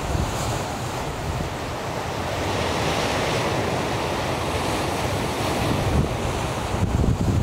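Wind buffeting the microphone over the steady wash of sea and surf, with stronger low gusts near the end.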